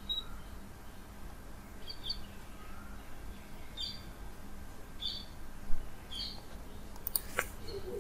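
A bird chirping repeatedly, short high chirps coming about once every second or so. A few sharp clicks near the end.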